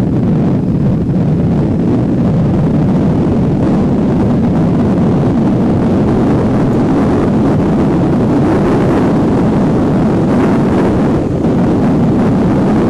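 Moped engine running steadily at cruising speed, mixed with loud wind rush on the microphone.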